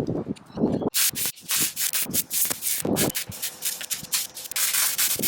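A run of irregular scraping strokes, several a second, beginning about a second in.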